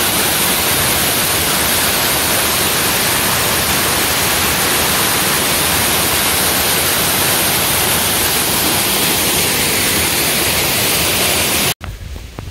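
Small waterfall pouring over a rock ledge into a pool: a loud, steady rush of falling water. It cuts off abruptly near the end, giving way to a much quieter low rumble.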